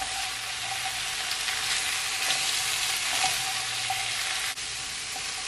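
Shredded cabbage, bell peppers and carrot sizzling in a hot frying pan with a steady crackling hiss, stirred and tossed with a spatula.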